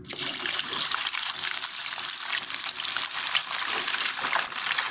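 Pieces of raw kole fish hit a wok of hot oil, which bursts at once into a dense, steady sizzle full of fine crackles as it boils around the fish.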